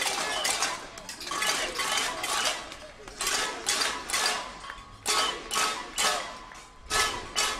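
Pots and pans banged as a protest: repeated metallic clanging with a ringing tone, two or three strikes a second, louder in the second half.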